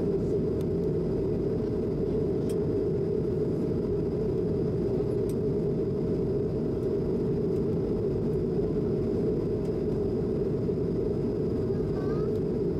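Steady low rumble inside an Airbus A220's cabin on the ground just after landing, its geared turbofan engines at idle, with a faint steady hum running through it.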